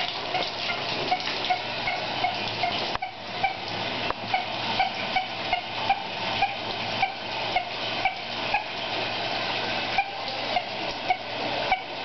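Shower spray running steadily, with short sharp sounds repeating about twice a second over the water.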